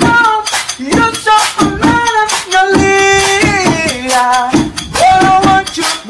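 A song: a voice singing a melody with long held notes over a steady percussive beat.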